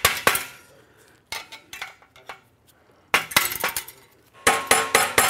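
A metal hand tool knocking on a stuck steel exhaust clamp and pipe under a Porsche 911 GT3 RS to work the clamp loose. It makes sharp metallic clanks that ring briefly: a couple at the start, lighter taps, then a quick run of blows about three seconds in and another near the end.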